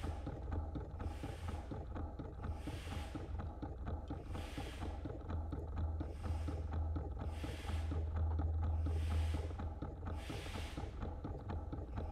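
Performance sound-art machines running: a steady low rumbling drone with a rhythmic hissing burst about every second and a half.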